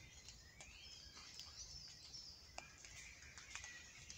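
Faint birdsong: scattered chirps and short trilled phrases, one rising glide near the start, with a few light clicks.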